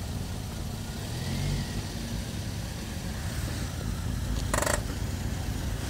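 2007 Toyota Yaris engine idling with a steady low rumble; the car has a multiple-cylinder misfire that three new coils have not cured. A brief sharp noise cuts in about four and a half seconds in.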